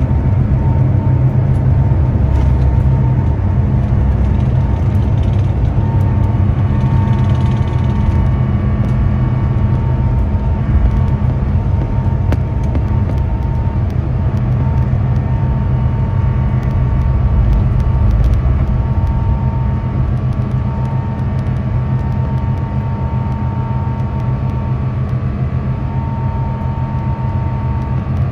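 Jet airliner cabin noise: a loud, steady low rumble with a faint steady hum above it, easing a little in the last third.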